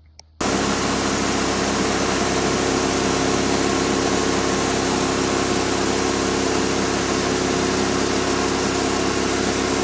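Portable sawmill running steadily at high speed while sawing a log into a square timber: an even engine drone under the hiss of the cut. It starts suddenly about half a second in.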